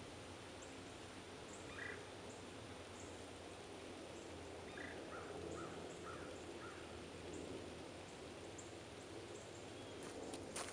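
Faint woodland ambience over a low steady hum, with a few distant bird calls: one short call about two seconds in and a run of four about five seconds in. Near the end, footsteps begin on snow-covered dry leaves.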